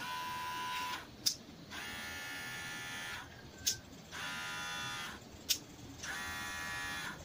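BoXin BoX-8089 cordless hair clipper switched on and off four times, its motor and blade buzzing steadily for about a second each time. A sharp click of the power button comes in each gap between runs.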